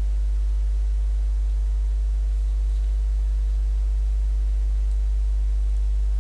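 Steady low electrical hum with a ladder of evenly spaced overtones, holding unchanged throughout.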